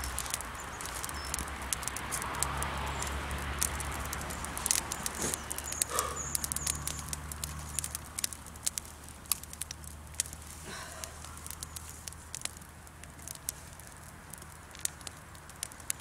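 Wood campfire crackling, with many sharp irregular pops and snaps, over a low steady hum that fades about halfway through.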